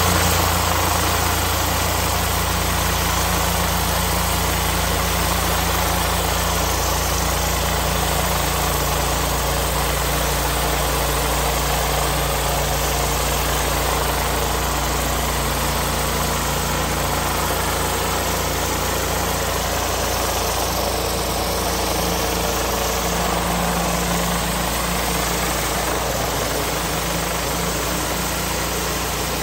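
Whisper Wash Maxima rotary surface cleaner blasting high-pressure water onto concrete, a steady hiss of spray over the continuous low hum of the pressure washer's engine.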